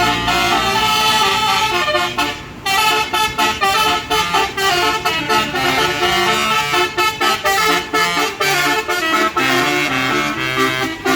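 Basuri telolet bus horn playing a tune: a quick string of loud horn notes, with a short break about two and a half seconds in.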